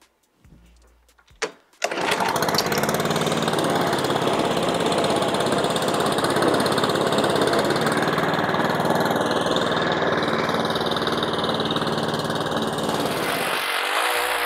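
Petrol walk-behind lawn mower engine starting about two seconds in, then running steadily at working speed while mowing grass.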